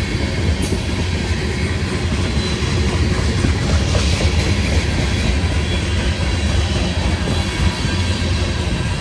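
Covered hopper cars of a grain train rolling past, a steady noise of steel wheels running on the rails.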